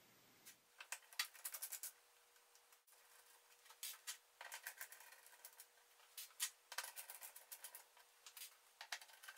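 Runs of small, sharp clicks and taps from a screwdriver and fingers working the small screws out of an iMac's LCD panel frame, in clusters with short pauses between.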